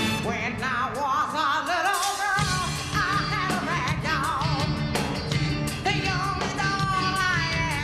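Female lead singer belting with heavy vibrato over a rock-and-soul band. The bass and drums drop out shortly after the start and the full band comes back in about two and a half seconds in.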